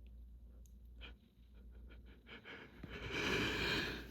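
A person's heavy breath through an itchy, allergic nose: one loud, noisy breath lasting about a second, starting about three seconds in, after a few faint small clicks.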